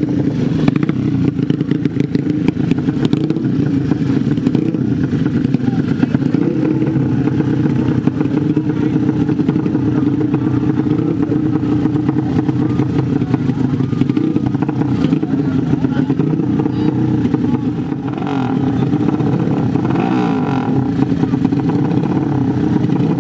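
Modified 150 cc horizontal-cylinder ('sleep engine') drag bike engines running at the start line, held at a steady idle with small throttle blips that lift the pitch a few times.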